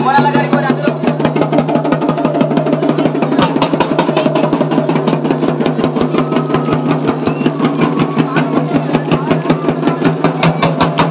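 A drum beaten in a fast, even rhythm of several strokes a second, over a steady low hum.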